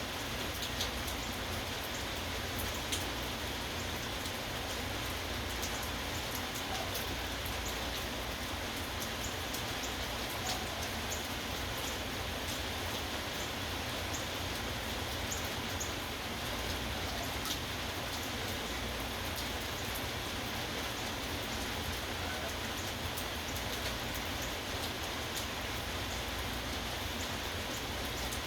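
Steady rain falling, with many individual drops ticking against a surface.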